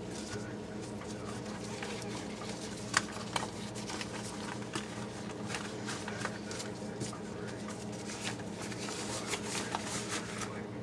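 Green rubber gloves being handled and pulled on: rubbery rustling with scattered clicks and snaps, the sharpest about three seconds in and a flurry near the end, over a steady low hum.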